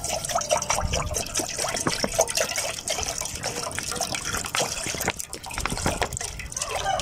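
Water poured from a plastic bottle into an aluminium saucepan, splashing continuously as the pan fills with about half a litre.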